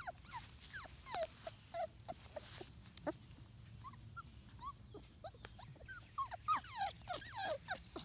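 Several four-week-old Labrador Retriever puppies whimpering and squeaking: many short, high calls that slide down in pitch, scattered and overlapping, coming thicker near the end.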